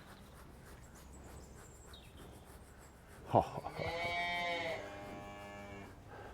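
A bovine lowing once: a single long moo a little over three seconds in, lasting about two and a half seconds and falling away at the end.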